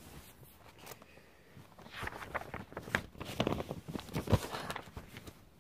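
Paper pages of a spiral-bound sketchbook rustling and flapping as they are handled and turned, a run of crackles with a sharp knock near the end.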